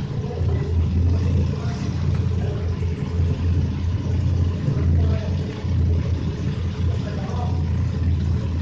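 Steady low rumble like an engine running in the background, with faint voices now and then.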